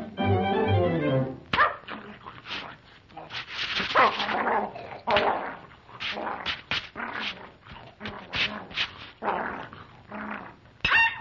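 Cartoon puppy sound effects: a long run of short, irregular chomping and snuffling noises as it gobbles food, after a moment of orchestral music at the start. A short high yelp comes near the end.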